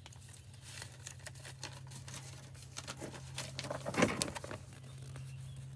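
Paper and packaging being handled: scattered light rustles and clicks, with one louder crinkle about four seconds in, over a steady low hum.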